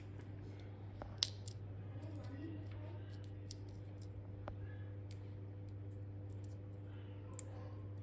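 Old-fashioned chocolate blending machine running with a steady low hum, with scattered light clicks and taps; the sharpest click comes about a second in and another near the end.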